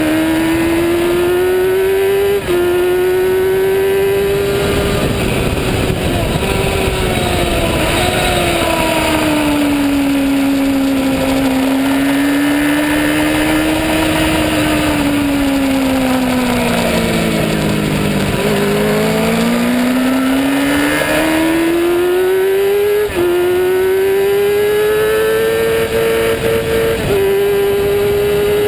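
Racing motorcycle engine at high revs, heard from a camera mounted on the bike, over steady wind rush. The revs climb and then drop sharply at upshifts, once about two seconds in and twice near the end. In the middle they sag slowly down low before building again.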